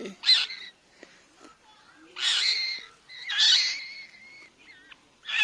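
Four harsh, hissing screech calls from a rescued fledgling bird as it is hand-fed an insect.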